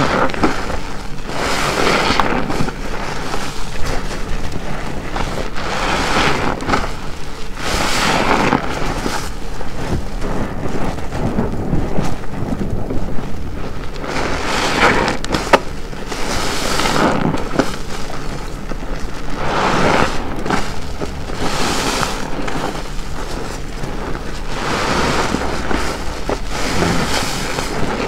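A large car wash sponge soaked with soapy water, squeezed again and again. Each squeeze gives a wet squelch and a rush of water streaming out, about every two to three seconds.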